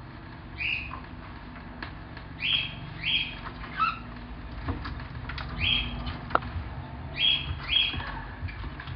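Bourke's parakeet giving short chirps, about seven of them in small groups, over a low background hum.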